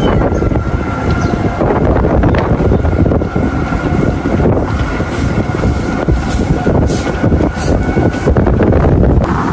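Steady rumble of a moving vehicle with wind buffeting the microphone, and a faint steady whine.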